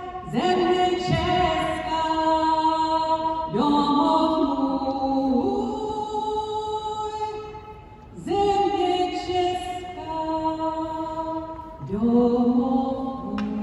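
A national anthem sung slowly by a solo singer over an ice hockey arena's loudspeakers. There are long held notes in four phrases, each opening with a short upward slide, with a brief lull between the second and third.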